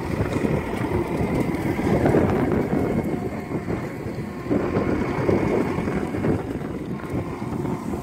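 John Deere compact track loader's diesel engine running under load as it powers a backhoe attachment digging, with wind buffeting the microphone.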